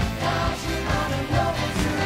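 Pop song playing: a singing voice over bass and a steady beat.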